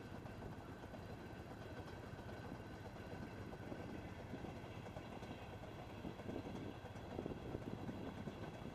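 Motorcycle engine running at low speed as the bike creeps through traffic, under a steady rumble and hiss of road and wind noise.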